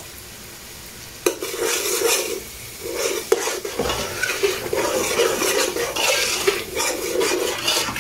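A metal spoon stirring and scraping softened onions and whole spices around an aluminium pot, with a light sizzle. The stirring starts with a knock about a second in and goes on in irregular strokes, the spoon now and then clinking against the pot.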